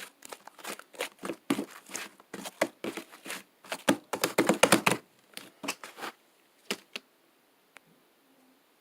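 Sticky pink slime being squished and stretched by hand, giving a quick run of wet crackling and popping clicks that thin out about five seconds in and stop about two seconds later.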